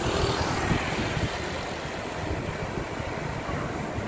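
Steady rushing outdoor road noise, recorded while cycling along a city street.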